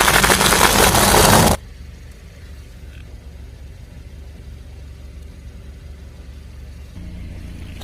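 A car tyre crushing crunchy objects: a loud, dense crackling crunch that cuts off about a second and a half in. It is followed by the car's engine running low and steady.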